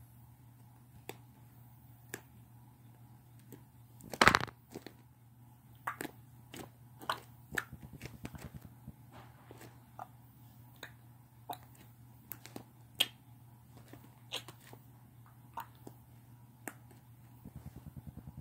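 Slime being squished and kneaded by hand, giving irregular small clicks and pops, with one louder burst about four seconds in and a quick run of ticks near the end.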